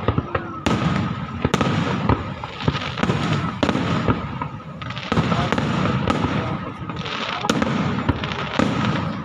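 Fireworks display: aerial shells bursting in a rapid, irregular series of sharp bangs, with a continuous crackle and rumble between them.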